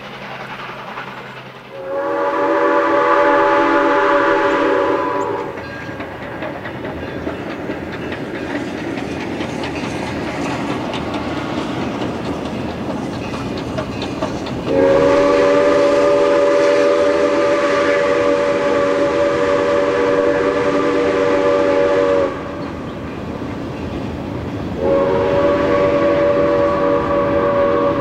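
Chinese QJ-class 2-10-2 steam locomotive's chime whistle blowing three long blasts, the middle one the longest and the last still sounding at the end, over the steady rumble and clatter of the train running on the rails.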